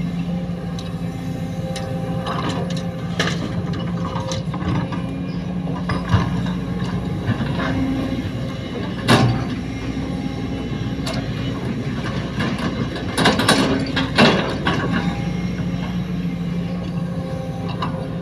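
Sumitomo hydraulic excavator's diesel engine running steadily while it digs and loads soil and rocks into a dump truck, with sharp clanks and scrapes from the bucket against stone; the loudest knocks come about nine seconds in and again around thirteen to fourteen seconds.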